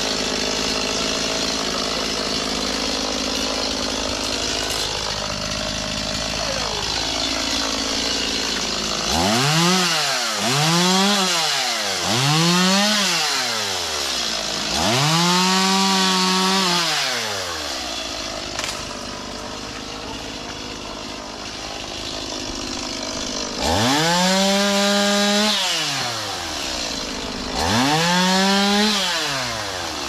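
A two-stroke chainsaw runs steadily, then from about nine seconds in is revved up and let back down about six times, each rise and fall lasting one to three seconds, as it cuts breadfruit branches.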